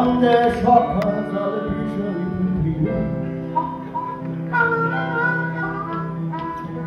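Live band music: a harmonica played into a microphone, with held notes, alongside singing.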